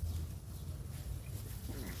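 A dog whining faintly near the end, over a steady low rumble.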